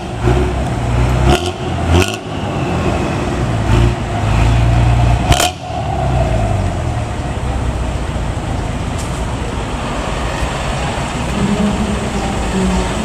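Intercity bus's diesel engine with a bored-out 'bobokan' exhaust, giving a deep snoring growl ('ngorok') as it revs past. The low rumble swells around four to five seconds in, with a few short sharp blasts in the first six seconds. A steady engine rumble carries on after that.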